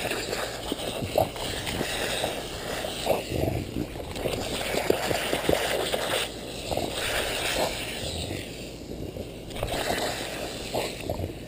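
A lawn sprinkler's water spraying with a hiss that drops out now and then, under irregular wet clicks and splashes as a bulldog snaps and laps at the jets.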